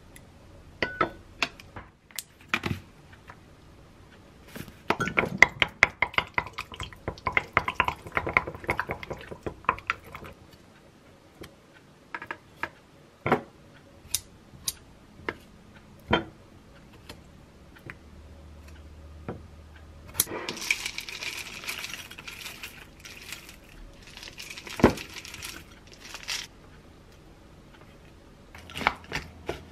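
Kitchen prep clatter: a wooden spoon and metal tongs tap and scrape against a glass mug and a plastic container as yogurt and melon chunks go in. Near two-thirds through comes a few seconds of rattling as a dry, crunchy topping is poured in, with one sharp knock on the glass.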